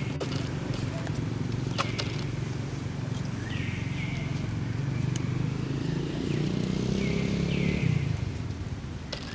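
A motor vehicle's engine hums steadily and fades out about eight seconds in. Over it come four short, high squeaks that fall in pitch, from monkeys, along with a few light clicks.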